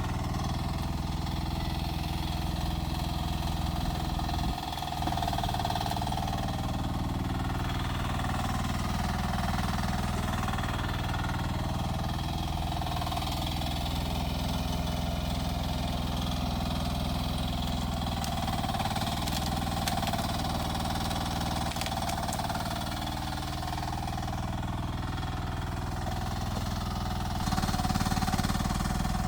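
Rippa R10 mini excavator's small engine running steadily while working, with a higher whine over it. Its level dips briefly about four and a half seconds in and rises near the end.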